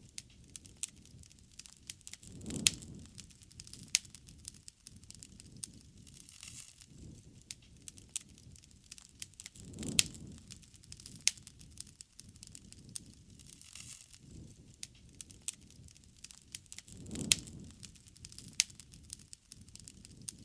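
Wood campfire crackling, with frequent sharp, irregular pops and snaps. Three low swells of flame noise come about seven seconds apart.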